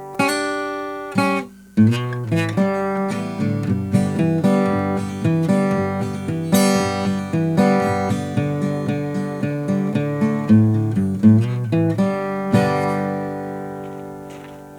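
Acoustic guitar intro music: a picked and strummed passage that ends on a chord ringing out and fading.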